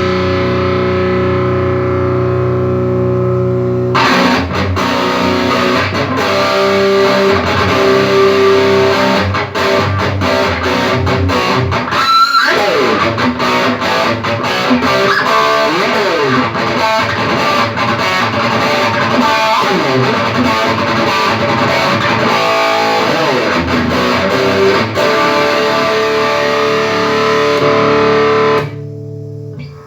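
Electric guitar played through a Mesa Boogie JP-2C amplifier: a held chord rings for about four seconds, then fast lead playing follows, with a sweeping pitch bend about halfway through, and it stops abruptly near the end.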